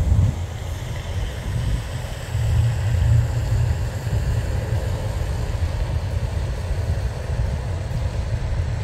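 Wind buffeting the microphone: an uneven low rumble, strongest about two and a half to three seconds in.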